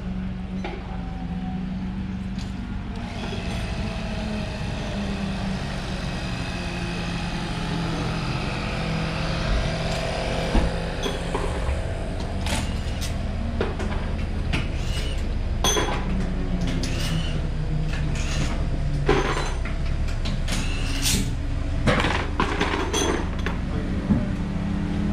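A car engine idling steadily, with several short sharp knocks and clicks from about ten seconds in.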